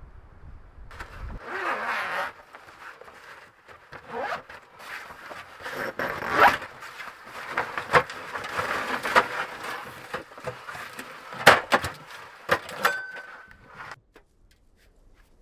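Close-up rustling and scraping of gear being handled, with several sharp clicks and knocks mixed in; it cuts off suddenly near the end.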